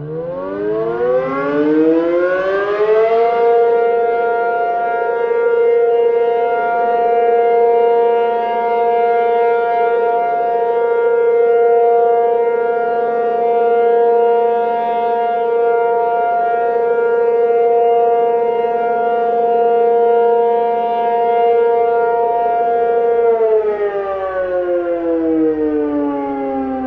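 Tornado warning siren, loud: it rises in pitch over about three seconds, holds one steady tone for about twenty seconds, then starts to fall in pitch near the end.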